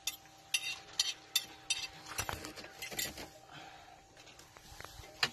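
Conventional fishing reel clicking in short bursts as an angler cranks in a hooked fish, about five quick bursts in the first two seconds and a few more scattered after.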